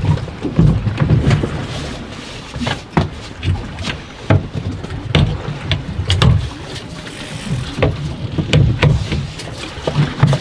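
Sounds aboard a drifting fishing boat: irregular low thumps with many sharp knocks and clatters scattered through.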